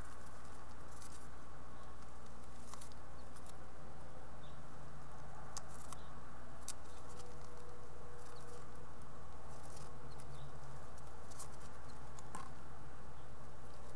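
House finch fledglings shifting about on the wooden floor of a nest box, giving a handful of light, scattered scratches and taps over a steady low hum.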